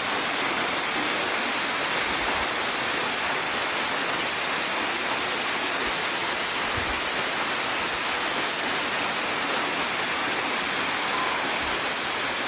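A big waterfall running: a steady, unbroken rush of falling water.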